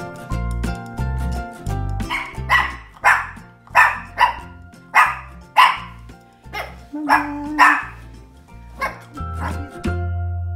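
Shih Tzu puppy barking, a string of about ten short barks starting about two seconds in, over background music with steady notes.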